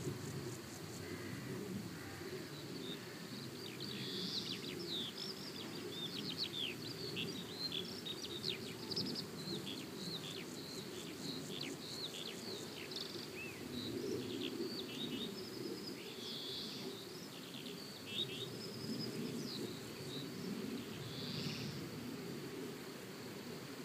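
Outdoor birdsong: many quick high chirps and twitters over a steady low background rumble.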